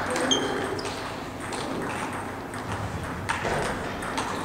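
Table tennis balls clicking irregularly off bats and tables from rallies in play around the hall, with a short high squeak about half a second in.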